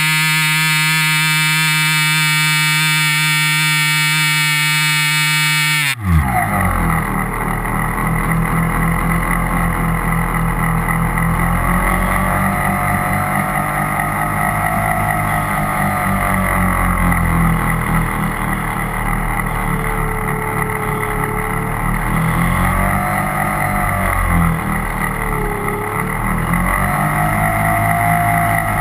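A harsh, steady buzz from the externally mounted GoPro Hero 2 resonating against its mount, which falls away in a sharp downward glide about six seconds in. After it, the Cessna 182's piston engine and propeller run steadily under wind rush, their pitch wavering slowly.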